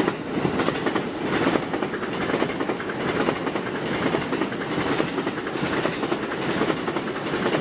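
Narita Express electric train passing close by: a steady rush of wheel and rail noise with rapid clacking of the wheels over the rail joints, fading away at the very end.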